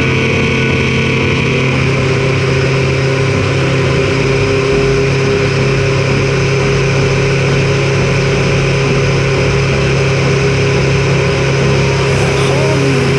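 Single-engine light aircraft's piston engine and propeller droning steadily, heard from outside the fuselage, as the plane climbs out low over the ground just after take-off.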